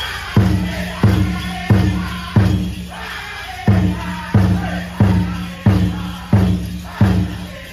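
Powwow drum group performing a chicken dance song: a large drum struck together in a heavy, steady beat about one and a half strokes a second, under high-pitched singing. The drum comes in about half a second in, drops one beat near the middle, and stops shortly before the end.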